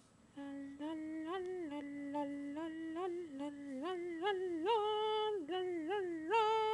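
A woman humming a tune: held notes stepping up and down in a melody, starting about half a second in.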